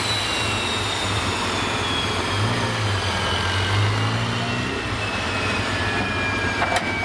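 Modified pulling tractor stopped at the end of its run, its engine and drivetrain winding down: a high whine falls slowly and steadily in pitch over a low steady drone.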